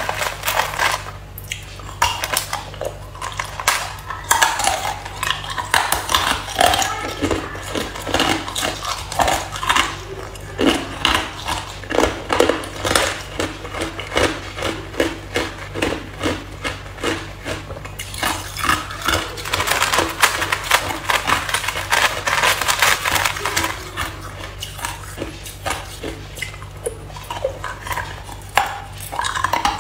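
Chunks of hard ice crunched and cracked between the teeth in quick repeated bites, with ice pieces clattering against each other in a plastic tub as they are picked out. A steady low hum runs underneath.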